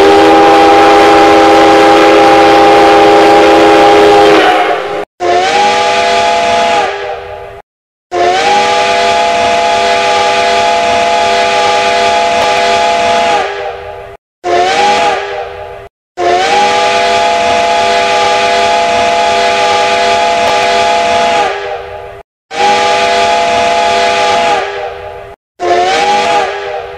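Five-chime steam whistle of the JNR C57-1 steam locomotive blowing about seven blasts, several tones sounding together as one chord over steam hiss. The blasts range from under two seconds to about six seconds long. Each one bends into pitch as it opens and sags as it closes, and the silent gaps between them cut in and out abruptly.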